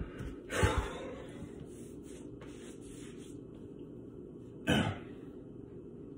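Two short, breathy bursts from a man, one under a second in and another near five seconds. The first comes with a few low thumps as he kneels on a tile floor.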